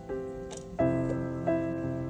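Background piano music, with a new chord struck about every three quarters of a second and each one fading.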